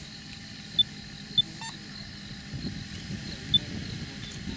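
Outdoor bush ambience: a steady high hiss, with three short high-pitched peeps, two close together about a second in and one more near the end, and some low rustling in the second half.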